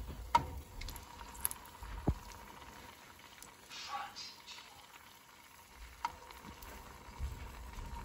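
Batter-coated mini Oreos deep-frying in a small saucepan of hot oil, bubbling and sizzling steadily, with a few sharp clicks of metal tongs against the pan.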